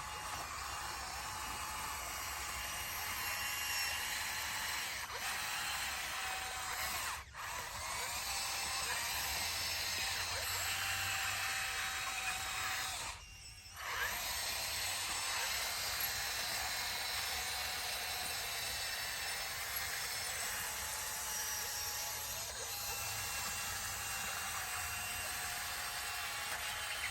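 Bulldozer working, heard as a steady mechanical whine whose pitch wavers up and down. The sound briefly drops out about halfway through.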